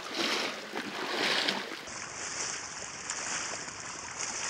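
Legs in waders sloshing through shallow sea water, two splashing steps about a second apart. Then, from about two seconds in, a steady underwater hiss of rushing bubbles.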